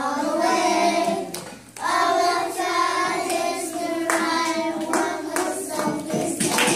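A group of young children singing a song together, with a brief break about two seconds in.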